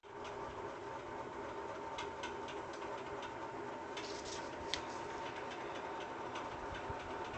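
Steady room noise with a faint high whine, with scattered light clicks and paper handling as the drawing sheet is moved, and one sharper click a little past halfway.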